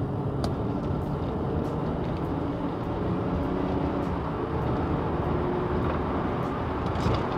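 2017 Ford Flex cruising at a steady speed, heard from inside the cabin: a continuous low drone of engine and tyre-on-road noise with a few faint ticks.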